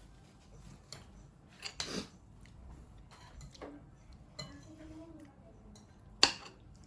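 Cutlery clinking against plates and dishes during a meal: a few scattered clinks, the loudest one near the end.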